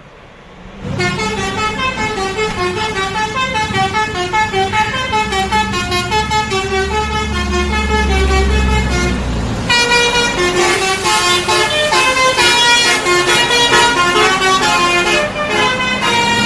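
A Basuri telolet multi-tone horn on an intercity bus plays a quick tune of short pitched notes, starting about a second in. Around ten seconds in it switches to a brighter, busier melody. A low drone swells under the horn in the middle.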